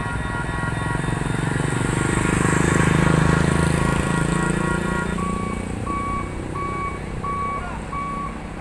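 A motorcycle engine passes close, loudest about three seconds in, over a steady high electronic tone. From about five seconds in, a truck's reversing alarm beeps about one and a half times a second.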